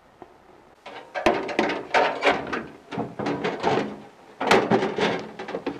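Sheet-metal bottle filler cabinet being handled and set onto its wall-mounted frame: a rapid run of metal clanks and knocks, some ringing briefly, starting about a second in.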